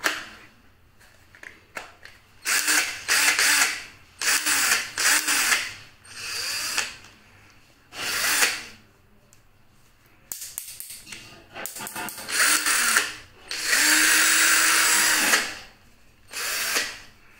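Foster FK 38-21 21V cordless drill run in about eight short bursts on the trigger. Each time the motor spins up and winds down after a second or so; the longest run, near the end, lasts about two seconds.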